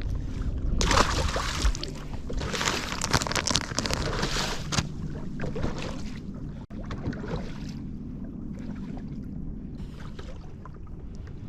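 Wind and water noise around a small fishing boat, with two loud rushing surges in the first five seconds over a steady low rumble.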